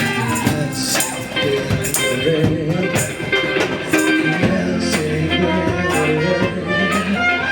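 Live band music between sung lines: guitar and other instruments playing over a steady percussion beat.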